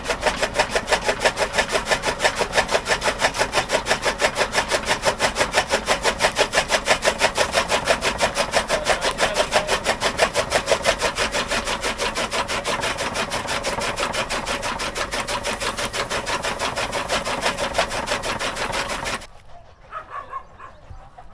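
Chaff cutter (toka) chopping green fodder, its flywheel-mounted blades cutting in a fast even rhythm of about five strokes a second. The chopping stops suddenly near the end.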